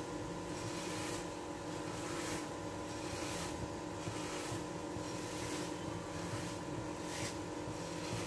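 Dry vermicelli crushed and rubbed between the hands in a glass bowl: a dry rustling crunch that swells about once a second with each squeeze. Under it runs a steady mechanical hum.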